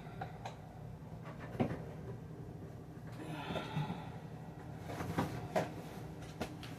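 Light knocks and clicks of items and fridge parts being handled while stocking a refrigerator, with a soft rustle about halfway through, over a steady low hum.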